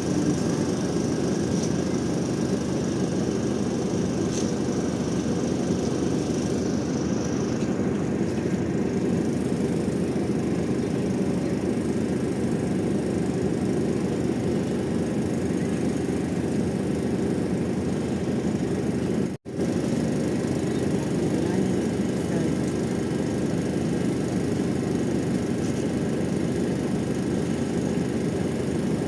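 Steady engine rumble with a noisy hiss. There is a brief dropout about nineteen seconds in.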